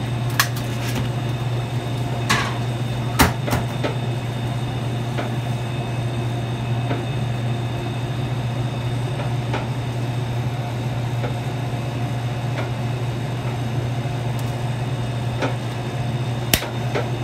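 Steady low hum of commercial pizza-kitchen equipment, such as oven and ventilation fans, running throughout. A few sharp knocks and clatters stand out, the loudest about three seconds in and another near the end.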